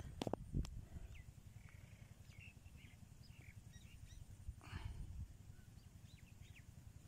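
Small birds chirping in short, scattered calls, faint against the open-air background. A few sharp clicks come in the first second, and a brief rustling noise comes about five seconds in.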